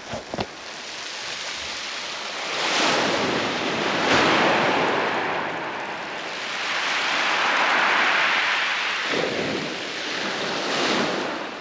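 Surf breaking and washing over a shingle beach, rising and falling in long surges every few seconds, with some wind on the microphone.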